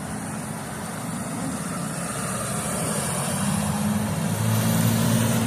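Road vehicle engine running, its hum growing louder over a few seconds as it approaches, over wind noise.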